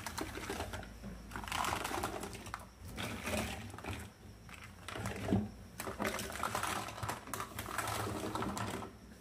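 Small plastic toy pieces and packaging being handled, giving spells of rapid clicking and rustling, about six in all, with short pauses between.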